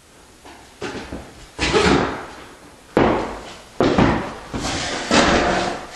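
Footsteps walking across the floor: a steady string of heavy thuds, about one every three-quarters of a second.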